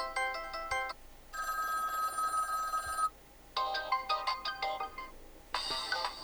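Ringtones of an Infinix Hot 20i phone previewed one after another, each cut off after a second or two. A short melody of electronic notes comes first, then a steady ringing chord, then another note melody, and a new tone begins near the end.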